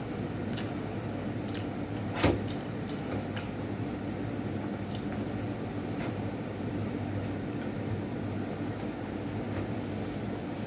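Eating sounds: scattered soft clicks and smacks of chewing, with one sharper click about two seconds in, over a steady electrical or fan hum.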